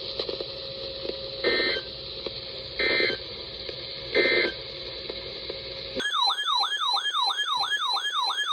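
NOAA Weather Radio end-of-message: three short bursts of EAS digital data tones (the 'NNNN' end-of-message code) about 1.4 s apart, over radio static. About six seconds in, a loud siren-like warbling alert tone starts, quick rising sweeps repeating about three times a second.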